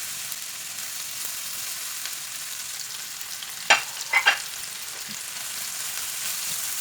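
Sliced onions sizzling in butter and oil in a frying pan, with three sharp clicks a little past the middle as they are stirred.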